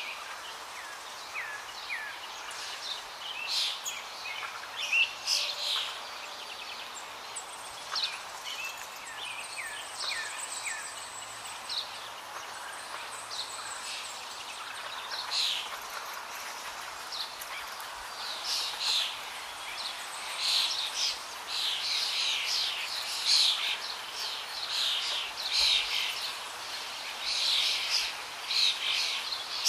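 Many small birds chirping and twittering in quick, short calls, scattered at first and crowding together through the second half, over a steady background hiss.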